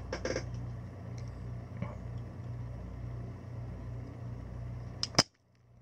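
Spring-loaded desoldering pump held to a melted solder joint on a circuit board, firing with a sharp snap about five seconds in as it sucks up the solder. A steady low hum and a few faint tool clicks run underneath.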